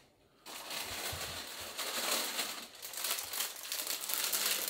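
Plastic bag crinkling and rustling irregularly as it is handled, starting about half a second in.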